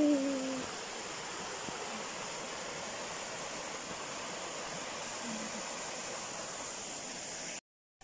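Stream water pouring steadily over a small concrete weir and splashing onto the rocks below. It cuts off suddenly near the end.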